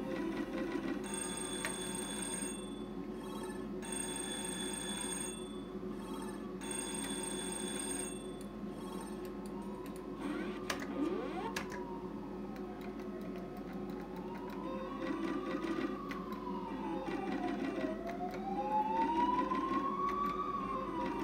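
Electronic sound effects of a Novomatic Sizzling Hot slot machine: a steady rattling reel-spin sound under three separate spells of bright ringing win tones in the first eight seconds, then a tone that sweeps slowly up and down several times in the second half.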